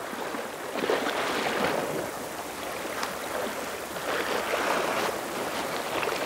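Seawater washing and splashing against the shore rocks, in uneven swells.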